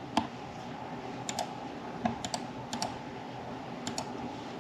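Irregular clicks from a computer keyboard and mouse, roughly two a second, over a steady background hum.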